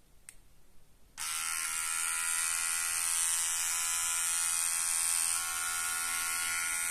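Silvercrest hair and beard trimmer's 5-watt electric motor, running with its pop-up precision trimmer blade extended. After a faint click, it switches on about a second in and runs with a steady buzz.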